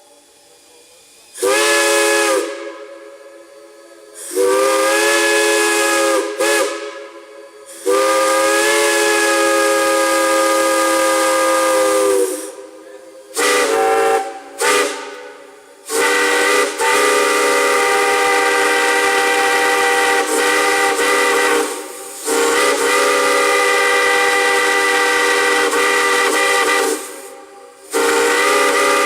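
A multi-chime steam whistle blown in a series of blasts, some short and some several seconds long, its several notes sounding together as one chord. Each blast bends slightly in pitch as the valve opens and closes, with a hiss of steam between blasts.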